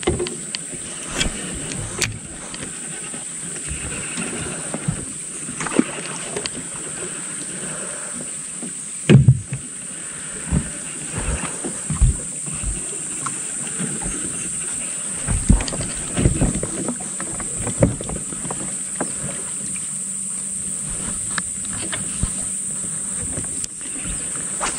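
Steady high-pitched drone of insects, with scattered irregular knocks and thumps, the loudest about nine seconds in.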